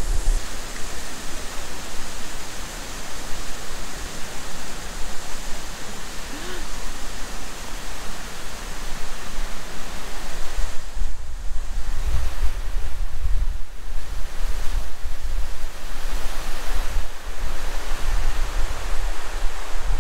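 Steady rush of falling water from a waterfall, with wind buffeting the microphone in low gusts that grow heavier about halfway through.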